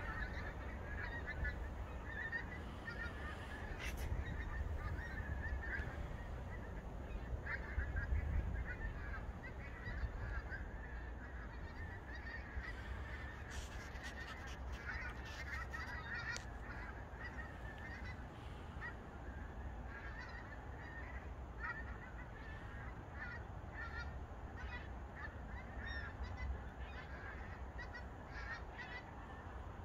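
A large flock of migrating wild geese flying over in formation, many birds honking at once in a continuous overlapping chorus, with a low rumble underneath.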